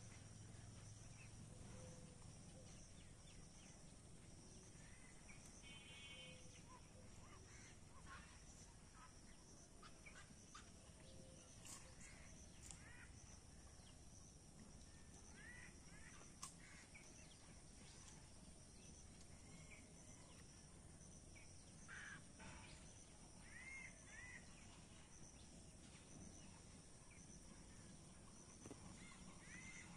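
Faint outdoor ambience by a pond: a steady high insect drone with a few short, scattered bird chirps and calls.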